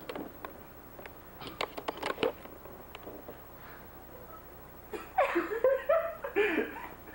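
A few sharp clicks and knocks about two seconds in, then people laughing loudly near the end.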